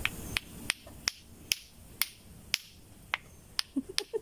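Lato-lato clacker toy: two hard plastic balls on a string knocking together in single sharp clacks, about two to three a second. The gaps between clacks widen a little and then shorten again near the end.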